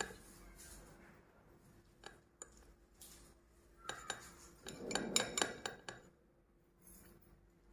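A metal fork cutting into a cream tart, scraping and clinking against the plate, with scattered taps and then a quick cluster of clinks about five seconds in.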